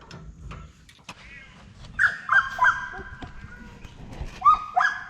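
A dog whining in a series of about five high-pitched yelps, some drawn out, starting about two seconds in, after a few faint clicks.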